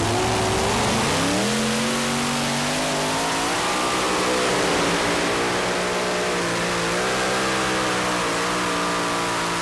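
Multi-engine super modified pulling tractor running at full throttle under load while pulling the sled. The engine note dips and then rises about a second in, then holds with a slight waver as the rear tires spin on a slick track without hooking up.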